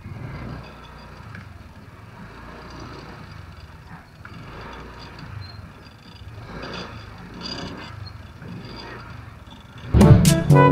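Steady low rumble of street background noise, with vehicles going by. Near the end, loud music with a tune of pitched notes starts abruptly.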